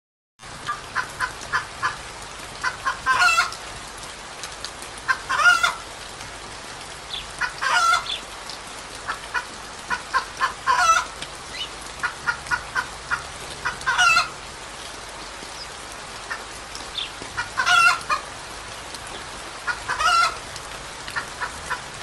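Chickens clucking in a rapid run of short calls, broken every two to three seconds by a louder, sharper call, over a steady hiss.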